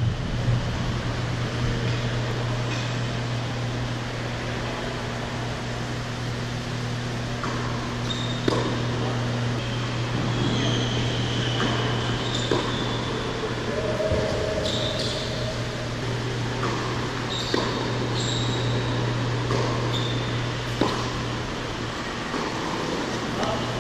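Steady hum of the indoor tennis hall's ventilation fans. From about eight seconds in, tennis balls are struck by rackets and bounce on the court every second or two, with short squeaks of tennis shoes on the hard court.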